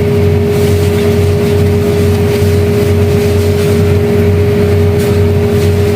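Loud, steady mechanical drone with a constant humming tone that does not change, like a motor running.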